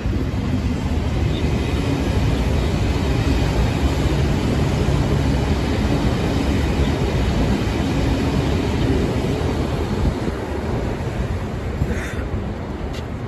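Container freight train wagons rolling past on the track, a steady rumble of steel wheels on rail with some clickety-clack. It eases off a little near the end.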